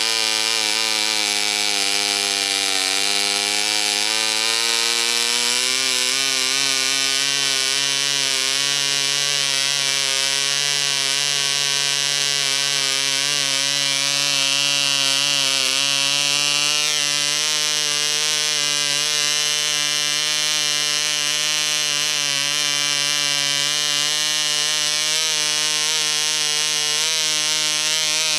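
P.A.W. 149 model diesel (compression-ignition) engine running on a test stand. Its speed sags about three seconds in, climbs back over the next few seconds and then holds steady, as its compression screw is adjusted.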